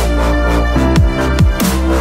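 Electronic background music with a deep, steady bass and several quick falling bass glides.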